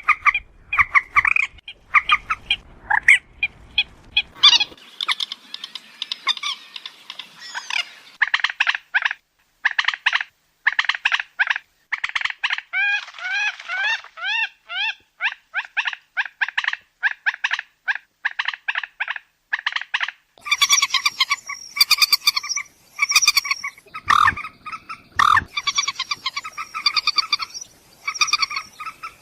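Moorhen calling: a long run of short, rapidly repeated croaking notes, some sliding in pitch, coming in denser clusters in the last third.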